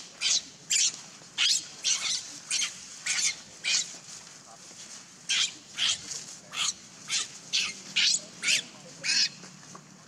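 Baby macaque screaming in distress: about sixteen short, high-pitched shrieks in quick succession, with a brief pause around the middle.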